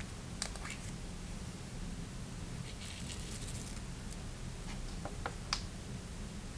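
Slime being handled and squished, giving scattered small clicks and pops in three brief clusters, over a steady low hum.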